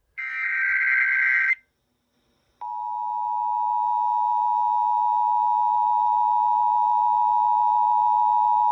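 Emergency Alert System tones: one short burst of warbling SAME header data, then after about a second's gap the two-tone EAS attention signal (853 and 960 Hz) starts and holds steady and loud, announcing an urgent weather warning.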